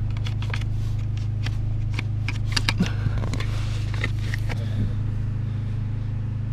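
Clicks and rustling as the old, debris-clogged cabin air filter is worked out of its housing under the dashboard of a 2008 Fiat Grande Punto, the handling noise thinning out near the end. A steady low hum runs underneath.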